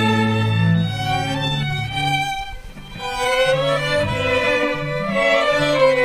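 A small string ensemble of violins, cello and double bass playing a classical piece, with a brief break between phrases about halfway through.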